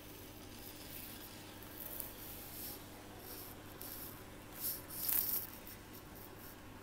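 Faint steady electrical hum with a few brief rubbing, brushing noises, the loudest about five seconds in.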